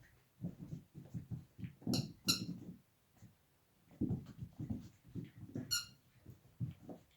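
Squeaky dog toy squeaking as a dog chews on it: two short squeaks about two seconds in and a third near six seconds, among low chewing noises.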